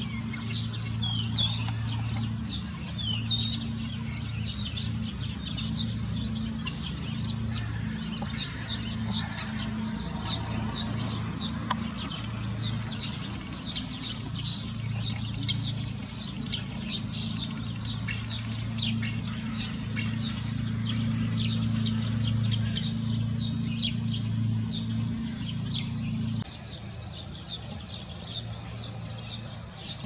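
Common starling singing: a rambling run of quick clicks, rattles and short whistles, with a steady low hum underneath that stops suddenly near the end.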